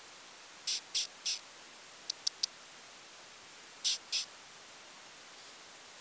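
Two dogs play-fighting on sand: three quick scuffing bursts, then three sharp little clicks, then two more scuffs.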